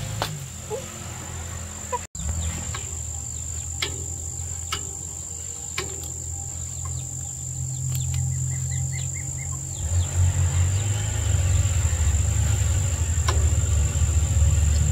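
Insects droning steadily at one high pitch over a low rumble, with a few sharp clicks; the rumble grows louder about ten seconds in.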